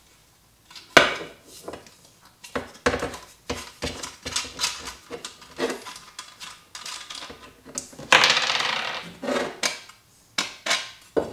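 Metal clinks and knocks from handling a partly dismantled steel-cased LiFePO4 battery and its parts, with a harsh scraping noise lasting about a second, about eight seconds in.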